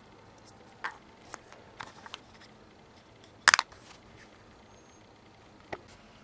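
Small plastic makeup pots clicking and tapping as they are handled and set down: scattered light clicks, with a louder cluster of about three quick clacks about halfway through and one more near the end.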